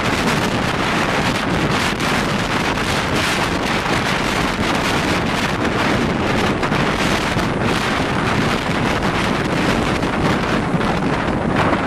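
Wind buffeting the microphone: a steady rushing noise that does not let up.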